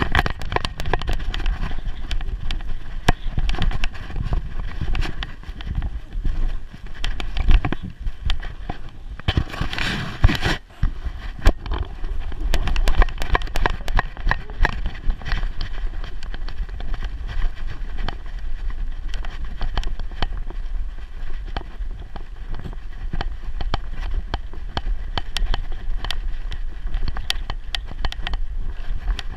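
Jostling and rubbing noise of a GoPro camera strapped to a Staffordshire bull terrier's back as the dog moves: a constant irregular clatter of knocks over a low rumble, with a louder burst of rustling about ten seconds in.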